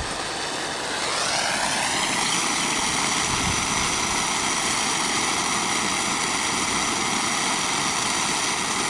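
Propane torch flame burning with a steady hiss, heating a crimped ground-wire connector so that the solder inside melts. Its tone shifts over the first couple of seconds, then holds steady.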